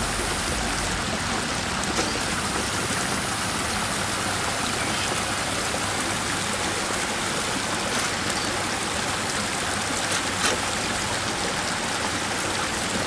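Steady rush of a stream flowing over rocks. A few short clicks stand out, the loudest about ten and a half seconds in.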